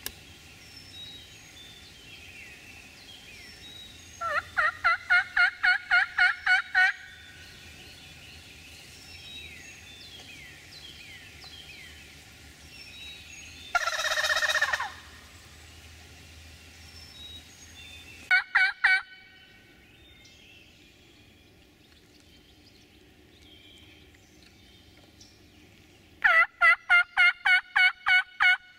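Wild turkey calling: two loud series of yelps, about four notes a second and ten to a series, one early and one near the end, with a single rolling gobble about midway and two short notes a few seconds later. Songbirds chirp faintly throughout.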